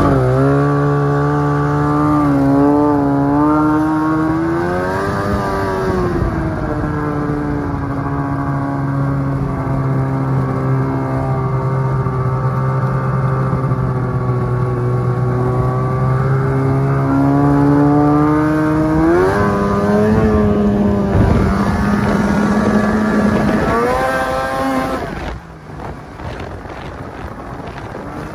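Snowmobile engine running under throttle, its pitch climbing and easing as the rider speeds up and backs off. The engine note falls away sharply about 25 seconds in.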